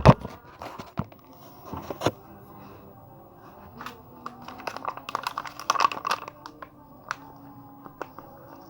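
A lovebird's short, sharp clicks and crackles, irregular and busiest about five to six seconds in, after a loud knock at the start.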